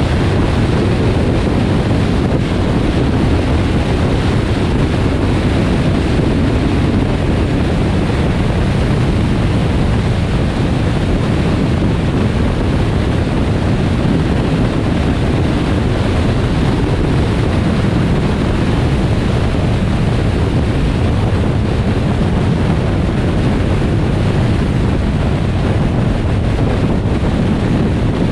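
Steady rumble of a car driving at highway speed: tyre and road noise mixed with wind on the microphone, unchanging throughout.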